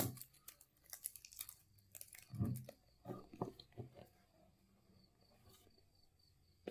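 Handling noises from unboxing a phone: packaging crinkling and rustling, with light clicks and knocks, dying away about four seconds in.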